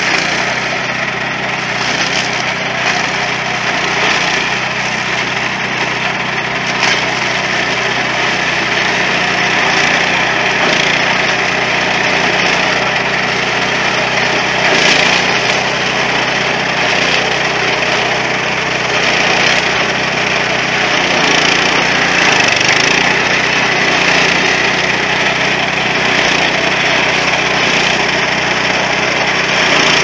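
Walk-behind mini corn harvester's small engine running steadily under load, with the crackling noise of maize stalks and ears going through the picking head.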